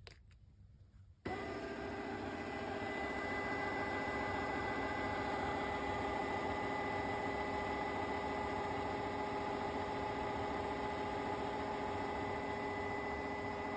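TICWELL SW301 wet-dry floor cleaner starting its self-cleaning cycle on the charging stand: its motor starts abruptly about a second in and runs steadily with a high whine.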